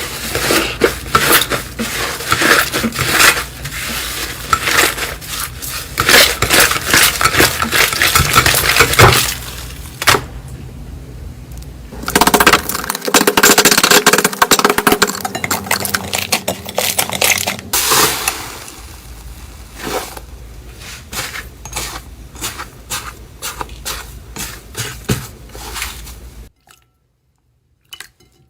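Hands squeezing and pressing slime close to the microphone: a dense crackle of small clicks and pops, in several stretches that change in texture, then cutting off near the end.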